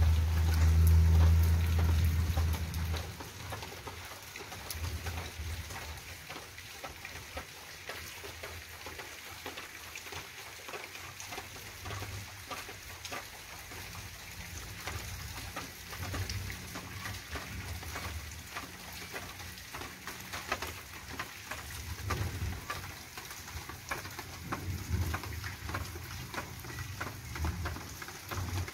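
Light pattering of water drops on wet surfaces, many small ticks over a soft even hiss, with intermittent low rumbles. A louder low rumble fills the first three seconds.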